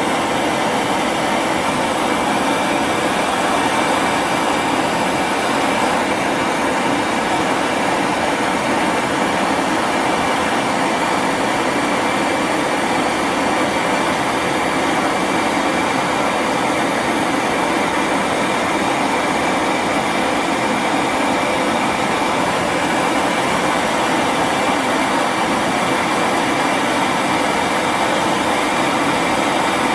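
LPG brazing torch burning with a steady, even roar, heating steel to melt manganese bronze rod into it.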